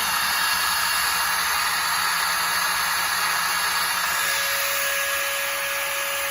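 Nitto Kohki Atra Ace LO-3550 magnetic drill's motor running free at full speed with no load, a steady whine at one unchanging pitch over a rushing hum.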